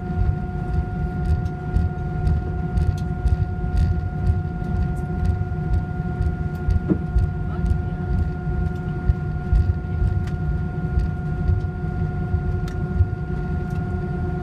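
Cabin noise of an Airbus A321 taxiing, heard from a window seat beside the wing: a steady low rumble from the idling engines and the rolling wheels, with a steady high whine over it.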